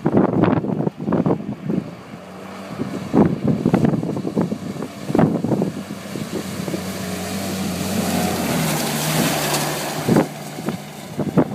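Toyota Hilux 4WD ute's engine pulling hard through a shallow river crossing, with the rush of water thrown up by the tyres. About eight seconds in the engine note rises and the rushing hiss peaks as the ute comes up onto the gravel bank spinning its wheels. Wind buffets the microphone in gusts.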